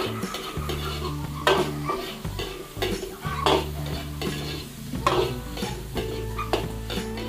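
Garlic and onion sautéing in hot oil and margarine in a pan, sizzling, while a utensil stirs and scrapes the pan in several strokes.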